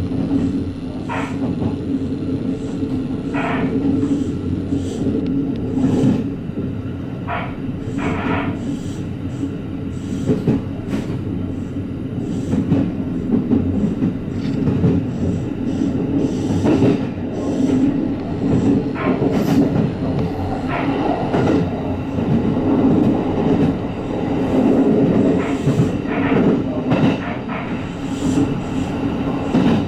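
Kintetsu Urban Liner Next limited express heard from on board while running at speed: a steady rumble with irregular clacks of the wheels over rail joints and points.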